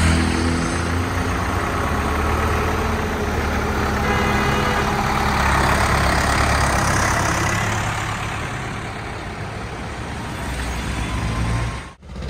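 A motor vehicle's engine running steadily, with a rushing road noise that swells louder about halfway through and then eases off.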